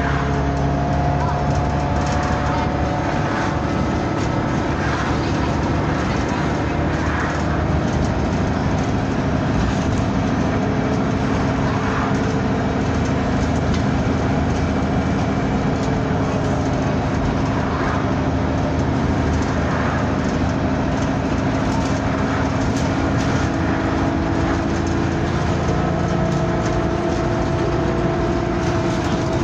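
On-board sound of a bus on the move: a steady engine and drivetrain drone with whining tones that slowly rise and fall in pitch, and scattered rattles and knocks from the body. These are the 'weird noises' the vehicle is known for.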